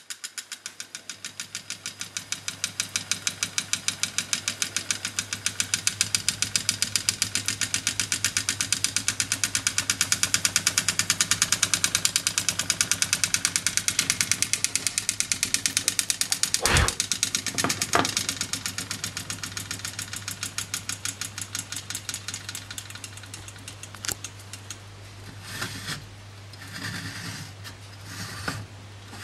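Fleischmann 105 toy steam engine running after its flywheel is flicked over: a rapid, even chuffing that builds up, then slows and dies away a few seconds before the end, over a low steady hum. Two sharp knocks come midway, and a few handling knocks near the end.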